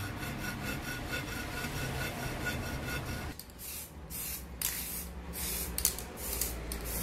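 Aerosol spray-paint can hissing in a run of short bursts from about three seconds in, painting a cast metal handwheel black. Before that there is a steady rubbing, scraping noise.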